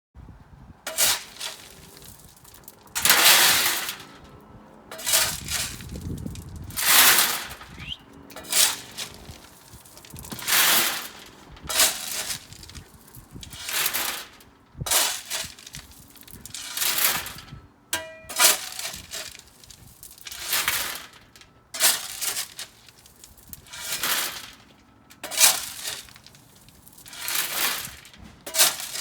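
Shovel scooping and tipping gravel: a crunching scrape of stones about every one and a half to two seconds.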